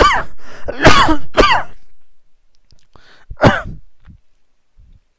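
A man clearing his throat with short coughs, in a few bursts over the first two seconds and once more about three and a half seconds in.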